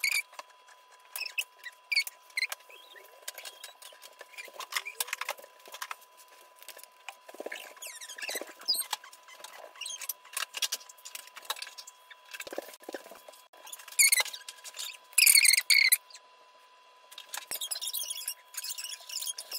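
Felt-tip art marker squeaking and scratching across paper in short strokes, with small taps and clicks between them. The loudest squeaks come in two bursts about two-thirds of the way through.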